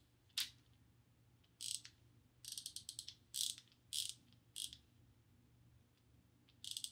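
Ratchet mechanism of a PB Swiss Insider 3 ratcheting screwdriver clicking in short runs of rapid clicks, with a few single clicks between and a longer run near the end. The owner feels the ratchet doesn't sound as good as he remembered.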